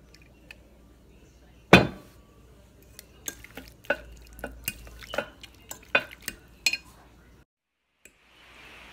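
Eating utensil clinking and scraping against a dish in a string of sharp clicks, with one louder knock about two seconds in. The sound cuts out for a moment near the end.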